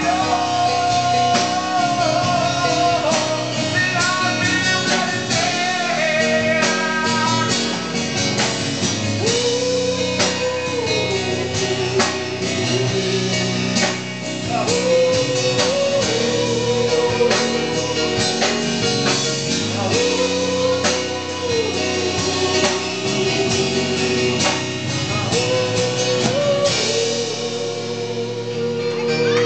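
Live band playing with electric guitars and drums, with a long held melody line over the top that slides and bends between notes.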